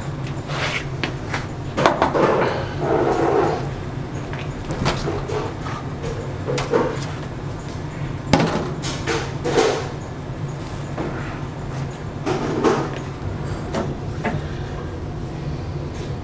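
Steel steaming trays and slabs of steamed rice cake knocking and clanking on a stainless-steel work table, a string of sharp knocks over a steady low machine hum.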